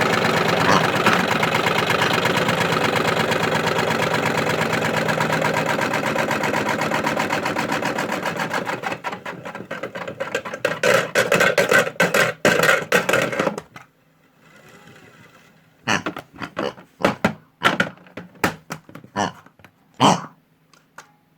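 A modified toy washing machine's small motor and drum running with a dense, steady rattle. The rattle turns uneven and stuttering before it cuts out, and a scatter of separate clicks and knocks follows.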